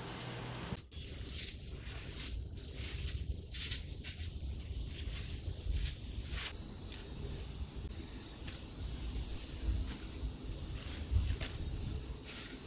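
Insects chirring in one steady, high-pitched drone, louder for the first few seconds and then fainter, over a low background rumble.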